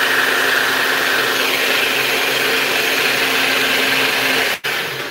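Personal bullet-style blender's motor running at full speed, blending a thick smoothie of fruit, oats, seeds and almond milk. A higher whine in the sound drops away about a second and a half in, and the sound breaks off for an instant near the end.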